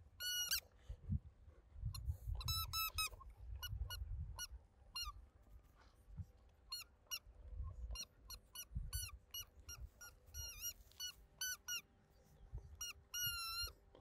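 Rubber squeaky toy squeezed over and over in a Samoyed's jaws as it chews it, giving short high squeaks in irregular quick runs, with one longer drawn-out squeak near the end.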